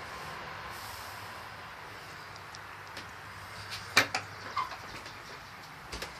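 A sharp click about four seconds in, followed by a few lighter knocks and another click near the end, over a steady low hiss.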